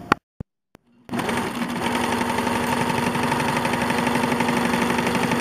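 Electric sewing machine running at a steady speed, stitching through layered fabric. It starts about a second in, after a brief silence, with a constant hum and rapid, even needle strokes.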